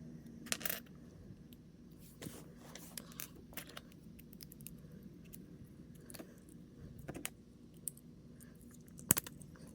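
Small plastic kit parts clicking and rattling as they are handled and fitted together by hand, with scattered sharp clicks and the loudest snap about nine seconds in.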